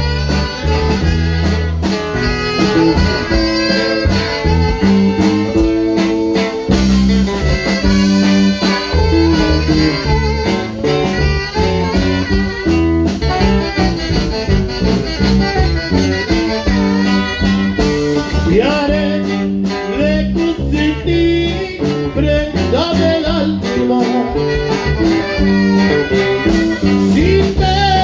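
Live band playing an instrumental passage: two alto saxophones carry the melody over an electric bass and keyboard, with a steady, bouncing bass line underneath.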